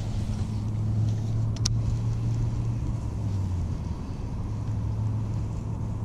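A steady low mechanical hum under faint outdoor noise, with one sharp click about a second and a half in.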